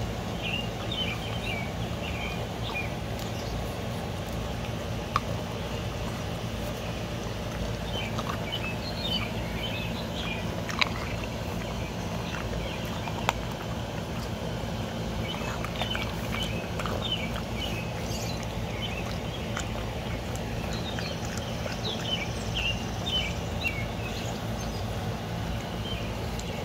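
Steady low background hum with birds chirping in short bursts now and then. Over it, a French bulldog chews on a piece of ice, giving three sharp cracks about five, eleven and thirteen seconds in.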